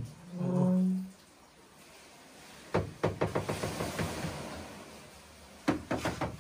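Two quick runs of sharp knocks, about six a second, the first starting about three seconds in and the second near the end. A short pitched hum comes just before, in the first second.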